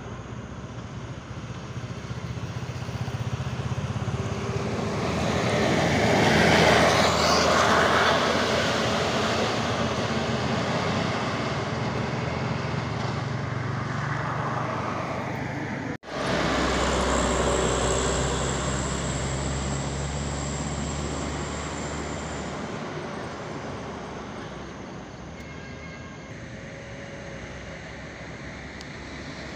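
Road traffic passing close by on a downhill road, with trucks and a car. Engine and tyre noise swells to a peak about a quarter of the way in and eases off. It cuts off abruptly just past halfway and comes straight back as a heavy low engine rumble, which then fades.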